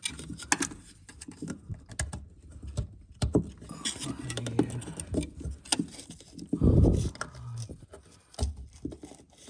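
Clicks, light knocks and rattles of parts being handled as the pressure switch is fitted back onto a furnace, with a heavier thump about two-thirds of the way through.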